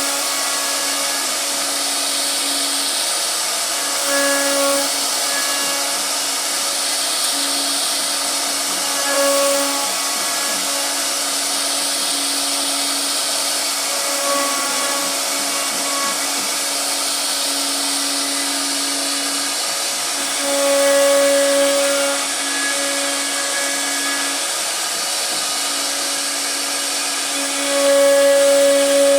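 CNC router spindle running and cutting a wooden door panel: a steady whine and hiss, with a pitched hum that swells louder several times as the bit takes heavier cuts.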